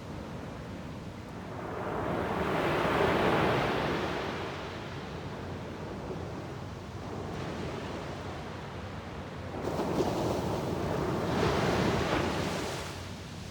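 South China Sea waves rolling in as a steady rush of surf, with two big surges. One builds and washes over about two to four seconds in; the second breaks suddenly near ten seconds and fades out just before the end.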